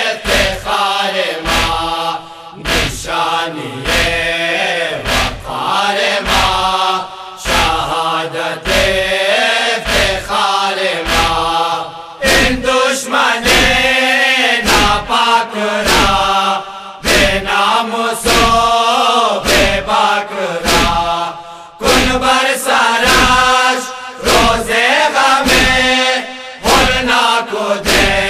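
Voices chanting a Shia noha, a lament for Hussain, in a repeated melody over a heavy regular beat of about one and a half strokes a second.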